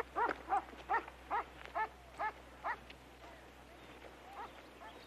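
A dog barking and yipping in a quick run of short calls, about two a second, that grow fainter and stop a little under three seconds in, with one faint call near the end.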